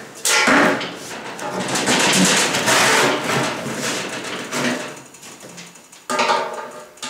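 Electric arc welding on the seam joining two steel gas cylinders: the arc strikes suddenly and runs for about five seconds before fading out, then a second weld starts about six seconds in.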